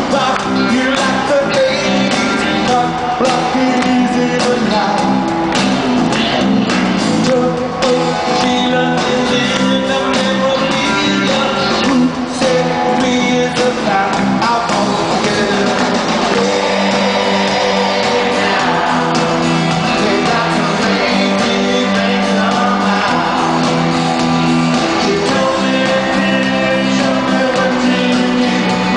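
Live rock band playing a song in an arena, with electric guitars, drums and sung vocals, heard loud from the audience with the hall's echo.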